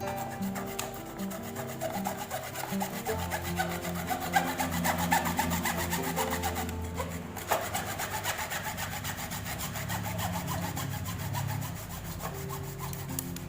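Hand saw sawing with quick back-and-forth rasping strokes, pausing briefly about seven seconds in. Background music plays underneath.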